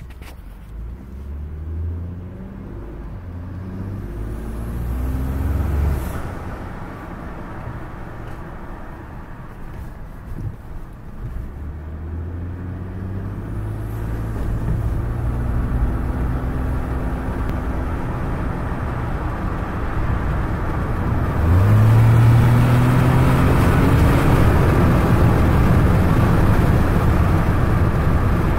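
Ford EcoBoost engine accelerating hard at full throttle. The engine note climbs in pitch and drops back several times. From about three-quarters through it grows loudest, with a strong hiss over the engine: the flutter the owner suspects is an exhaust leak, which the dealer could not trace.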